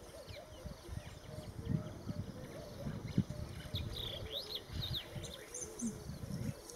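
Birds chirping in quick rising and falling notes, busiest in the middle, with low repeated cooing notes. Beneath them is irregular low rustling with soft thuds.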